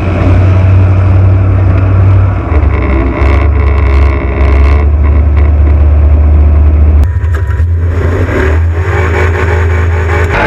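Off-road race vehicle's engine running loud under throttle. Its pitch steps down and up a few times, then climbs again near the end.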